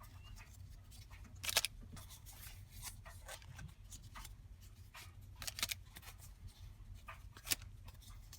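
Heavy cardstock paper ephemera pieces being handled and shuffled: short rustles and clicks of stiff paper, loudest about a second and a half in and again near the end, over a low steady room hum.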